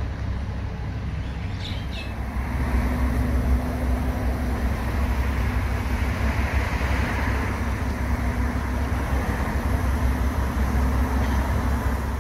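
Street traffic: cars and a truck passing on a busy city road, a steady rumble and tyre noise with a low engine hum, growing louder about two and a half seconds in.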